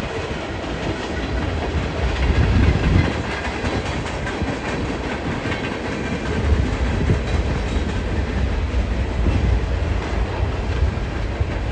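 Long freight train of empty centre-beam flatcars rolling past, a steady low rumble with the wheels clicking over the rail joints.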